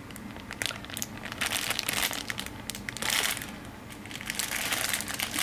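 Clear plastic packaging of a cotton gauze handkerchief pack crinkling as it is handled, with irregular crackles throughout and a denser patch of crinkling a little past the middle.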